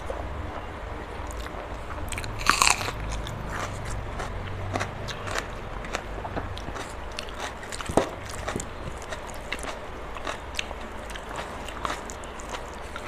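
Close-miked chewing of a mouthful of rice and curry, with many short crisp clicks and crunches; the loudest comes about two and a half seconds in and another sharp one about eight seconds in.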